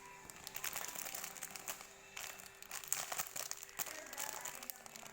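Close-up eating sounds: chewing a soft steamed chocolate cake, a run of small irregular wet clicks and crinkles.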